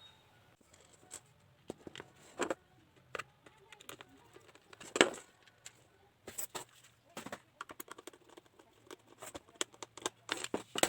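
Irregular sharp clicks and taps from handling the opened electric mosquito bat and its parts, the loudest about five seconds in and a quicker run of them near the end.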